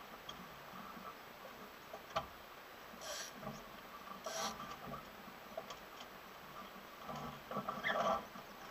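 Scattered knocks, scrapes and rustles on a small catamaran's deck and hull as a person moves about on board. There are two short scratchy rustles about three and four and a half seconds in, and a louder cluster of knocks near the end as he climbs forward onto the deck.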